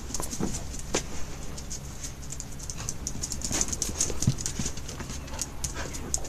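Dog pacing on stone paving, its claws clicking and scuffing in an irregular patter of quick clicks.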